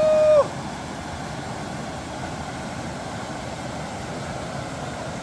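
Steady rush of a swollen river's flowing water, an even wash of noise; a brief held call sounds at the very start.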